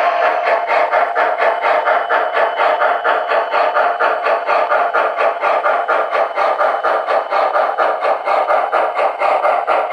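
Rapid, even steam chuffing from the Proto-Sound 2 sound system of an MTH Premier O-gauge Shay geared steam locomotive model as it runs, at about five chuffs a second.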